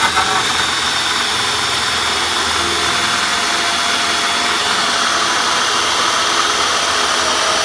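Ryobi cordless drill running steadily at full speed, driving a hole saw through the wall of a plastic barrel. The saw has already bitten into the plastic and is run in reverse, which gives a smoother cut.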